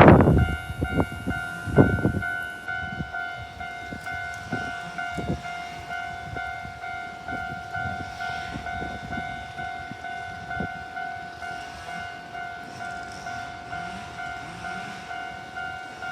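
Japanese level-crossing warning bell ringing: an electronic two-tone ding repeating at an even pace. Scattered low knocks run underneath, loudest in the first couple of seconds.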